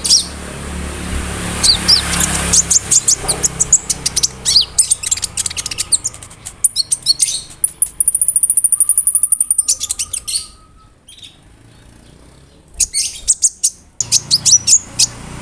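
A konin (a small sunbird kept as a songbird) singing energetically: rapid runs of sharp, high chirps and sweeping whistles. About halfway through comes a long, steady, high buzzing trill, followed by a short lull and more quick chirps near the end.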